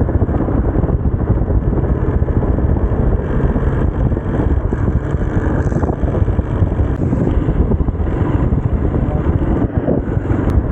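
Motorcycle running along at road speed, a steady low engine and road rumble mixed with wind on the rider's microphone.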